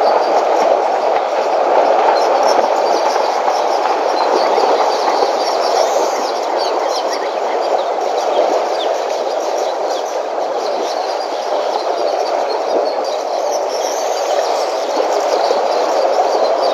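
Steady churning and sloshing of water as elephants wade and swim through a waterhole, with small splashes over it.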